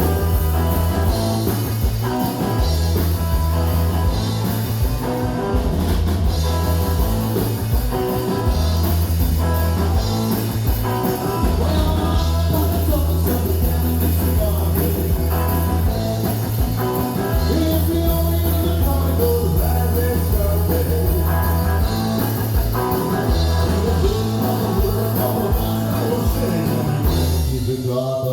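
Live rock band playing: drum kit, a driving bass line and guitar, with a voice singing.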